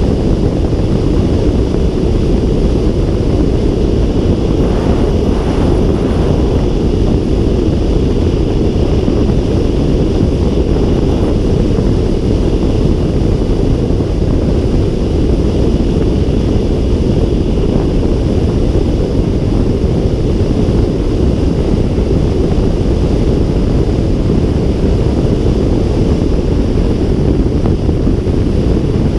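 Steady rush of air streaming over a glider's canopy and airframe in flight, heard from inside the cockpit, with wind noise on the microphone. There is no engine.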